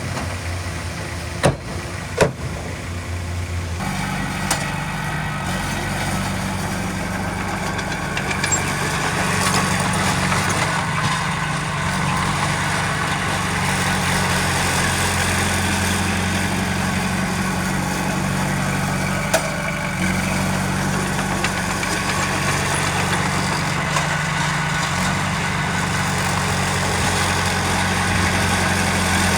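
Heavy diesel engine of earthmoving machinery running steadily. About four seconds in, its note steps up and it runs harder, as under load. Two sharp knocks come shortly before that, and a single one comes later.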